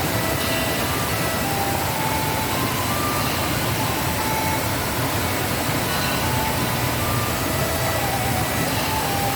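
Waterfall in heavy rainy-season flow: water pouring and rushing steadily at a constant level, with faint short high notes now and then above it.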